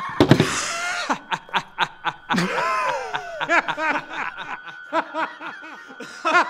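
A man laughing heartily: a long run of rhythmic pitched 'ha-ha' pulses, several a second, opening with a short raspy burst.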